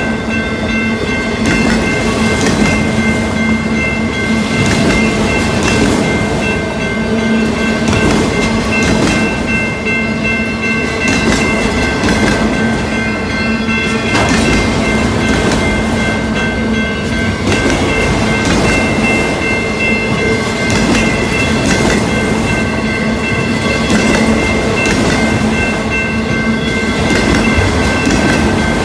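Freight cars of a CN train rolling steadily past a grade crossing, their wheels knocking repeatedly over the rail joints. Steady high ringing tones run underneath, typical of the crossing's warning bell.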